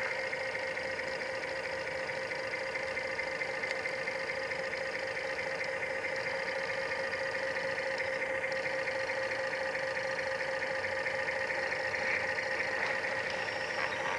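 Steady whine of radio-controlled scale model machinery running, several fixed tones held throughout, with small pitch shifts about six and eight seconds in.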